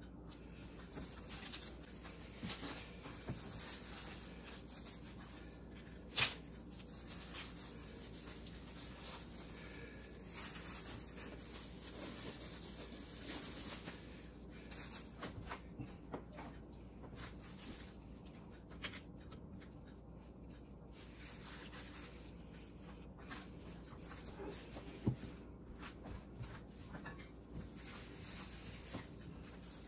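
Intermittent rustling and handling noises from plastic-wrapped meat packaging and parchment paper being handled on a countertop. A sharp knock about six seconds in is the loudest sound, and a second, smaller one comes near twenty-five seconds.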